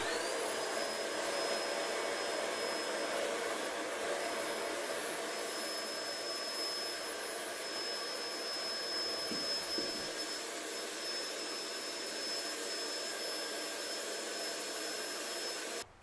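Home-built vacuum cleaner running on a salvaged Hoover Telios motor. It starts abruptly, its high motor whine rising as it spins up, then runs steadily as the hose sweeps the floor. It cuts off suddenly near the end.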